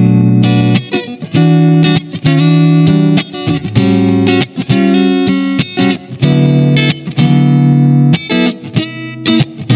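SQOE SETL960 electric guitar with humbucking Alnico pickups played through an amp: strummed chords, some held for about a second, others cut short in quick stabs.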